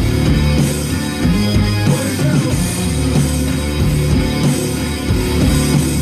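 Hard rock music: an instrumental passage of electric guitar with bass and drum kit, playing steadily.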